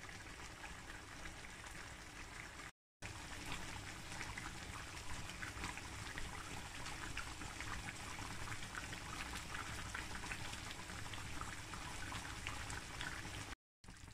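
Green chicken curry gravy bubbling hard in a frying pan over full heat: a dense, steady patter of small pops and spits as it cooks down. The sound cuts out briefly twice.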